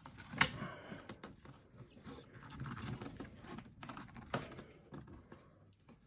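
Gloved hands shifting and pressing on 12 V sealed lead-acid battery blocks in their plastic cartridge tray: rubbing and scraping, with a sharp click about half a second in and another knock a little after four seconds.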